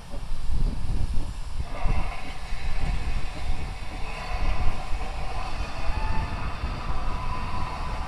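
Steam Railmotor No. 93 working along the line at a distance: a low, uneven rumble, joined about two seconds in by a steadier, higher rushing sound.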